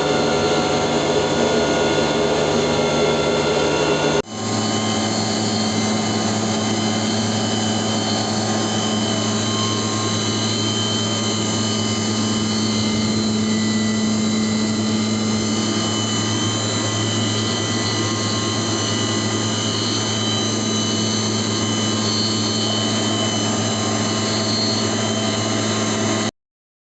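CNC milling machine running steadily, a motor hum with a steady whine. The sound changes abruptly about four seconds in and cuts out briefly near the end.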